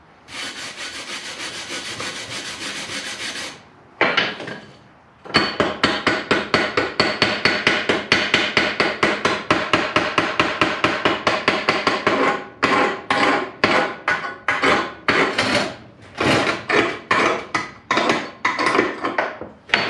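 Hand tool working a freshly welded steel plate: a steady hiss for about three and a half seconds, then fast, even scraping strokes at about six a second, slowing to uneven strokes in the second half.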